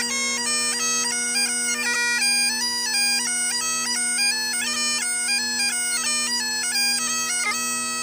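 Scottish bagpipes playing a quick tune: the chanter moves through rapid notes over the steady drones, then settles on a long held note near the end.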